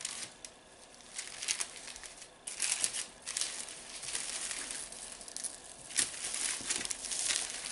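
Clear cellophane wrap crinkling and rustling in irregular bursts as it is rolled around a soft log of candy dough by hand, with a sharp click about six seconds in.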